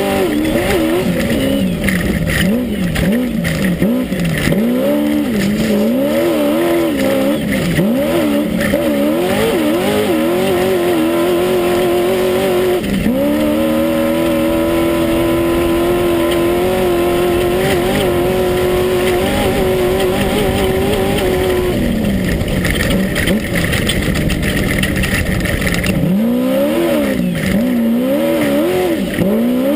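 Class 1 unlimited desert race buggy's engine heard from inside the car at race pace, the revs rising and falling over and over. About halfway through the engine holds one steady high note for several seconds, then the revs start rising and falling again near the end.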